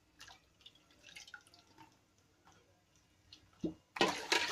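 Hands swishing and lifting chopped banana-stem pieces in a bowl of water, with small drips and splashes, then a louder splash about four seconds in as water is poured off the bowl.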